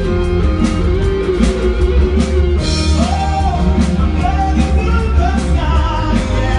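Loud rock-and-roll music with a steady beat. A singing voice comes in about halfway through.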